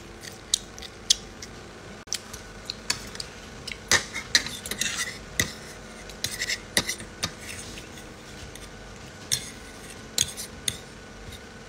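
Cutlery clinking and scraping on a dish while eating spaghetti: irregular sharp clicks, coming thickest around the middle.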